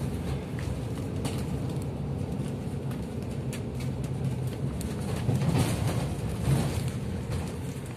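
Bus engine and road noise heard from inside the moving bus: a steady low drone with light clicks and rattles, growing louder for a while about two-thirds of the way through.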